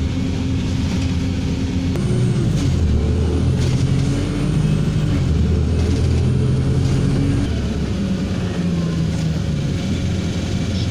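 Engine hum and road rumble heard from inside a moving bus, the engine note shifting up and down in pitch as the bus changes speed.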